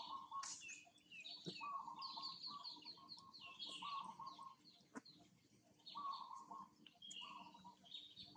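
Faint birds calling: a short steady note repeated every second or so, over quick runs of falling chirps.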